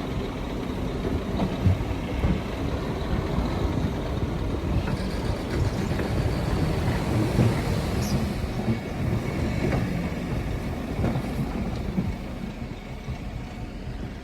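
Heavy diesel earthmoving machinery running with a steady deep rumble, with a few faint knocks.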